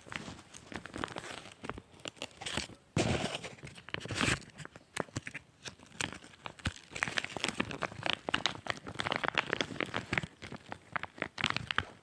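Sticky squishy toys being handled, giving irregular crackling and crinkling with clusters of sharp clicks, densest in the second half.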